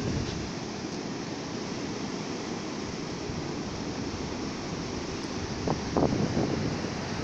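Ocean surf washing onto a beach in a steady rush, with wind buffeting the microphone and a louder surge about six seconds in.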